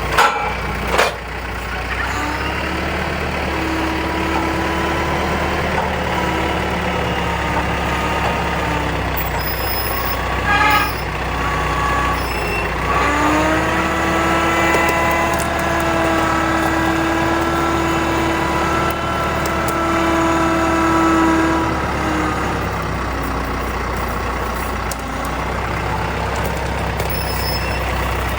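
A tractor engine running steadily, with a couple of knocks near the start. About thirteen seconds in the engine revs up, holds a higher, steady pitch for about nine seconds, then settles back.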